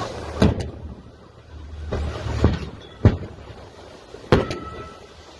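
Sharp bangs from the burning scuba diving boat, the sound of scuba tanks exploding in the fire. There are two in quick succession about half a second in, single bangs at about two and a half and three seconds (the loudest), and another quick pair near four and a half seconds. They sound over a steady hiss of wind and water.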